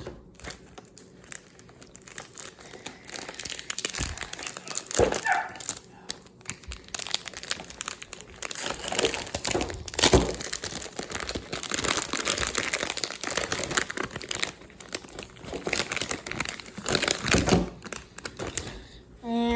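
Magnetic 7x7 speed cube being turned by hand: quick, uneven plastic clicking and clacking of its layers.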